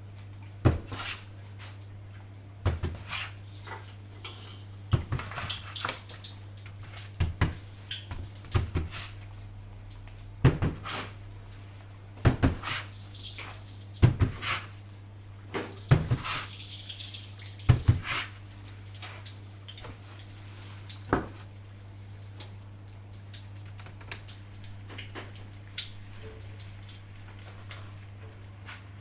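Utensils knocking and clattering against a pan of hot oil, often twice in quick succession, over a steady low hum, while patongko dough is fried. The knocks come thickly at first and thin out in the last third.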